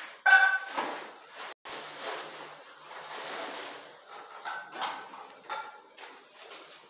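Short pitched animal calls over background noise: a loud one just after the start, then several fainter ones between about four and five and a half seconds in.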